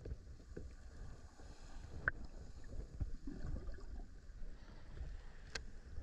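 Muffled underwater sound heard through a submerged camera: a low, steady rumble of moving water, with a few sharp clicks. The clearest clicks come about two seconds in and near the end.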